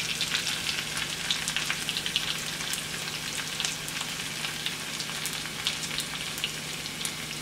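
Hot bacon fat sizzling with a steady stream of small irregular crackles, as it is poured from a skillet of fried bacon and jalapeños into a nonstick frying pan over a gas flame.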